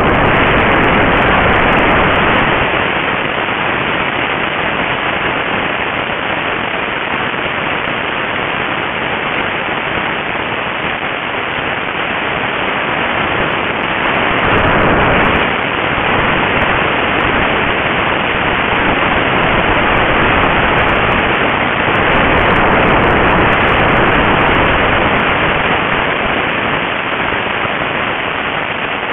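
Steady rushing noise of wind over a small onboard camera's microphone, with no clear motor tone; it swells slightly twice.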